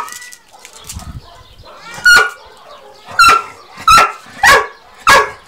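Dog barking at cats in short, sharp barks, about five in a row, half a second to a second apart.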